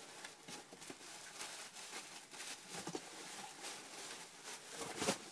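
Rustling and crinkling of paper and plastic packaging as items are pulled out of a cardboard shipping box, with a louder crackle about five seconds in.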